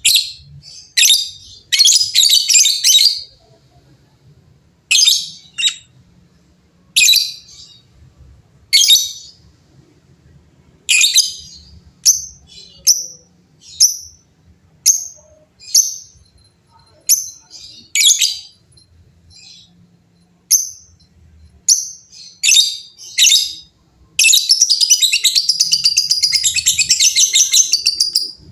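Lovebirds giving short shrill chattering calls every second or two, answering one another, then one long unbroken chattering trill (ngekek) lasting about four seconds near the end.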